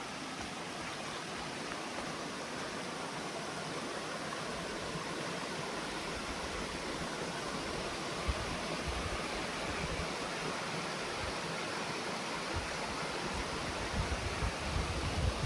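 Steady rushing of a mountain stream, with a few low thuds on the microphone toward the end.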